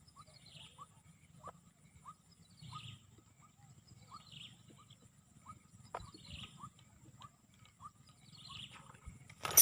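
Faint animal calls: short falling chirps repeating about twice a second over a low rumble. A sudden loud noise comes near the end.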